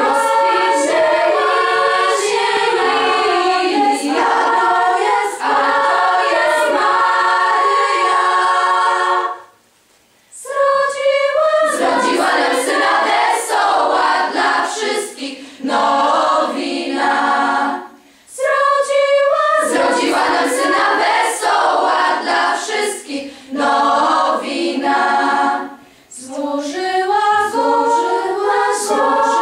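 Girls' choir singing a Christmas carol a cappella, in sustained phrases with short breaths between them and a brief silent pause about ten seconds in.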